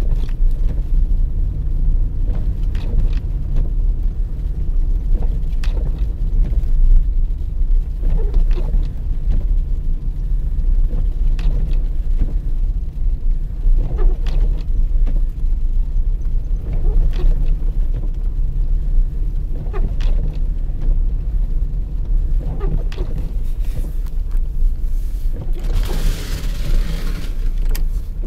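Steady low rumble of a car driving on a snow-covered road, heard from inside the cabin, with faint light knocks every few seconds. Near the end a louder hiss lasts about two seconds.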